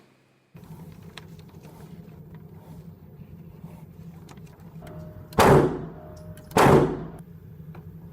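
Two gunshots about a second apart, each with a short ringing tail, over a steady low hum.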